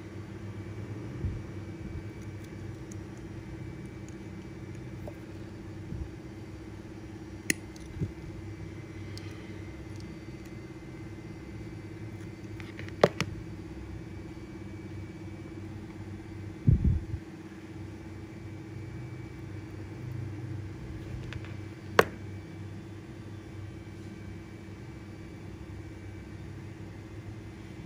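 Steel pliers and thin steel wire giving a handful of sharp metallic clicks as the wire is twisted into a loop, with a dull thump a little past halfway, over a steady low hum.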